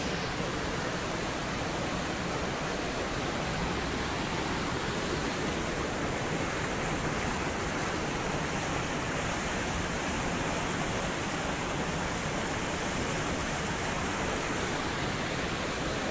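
Steady, even rush of water from a small waterfall cascading over boulders into a pool on a rocky mountain river.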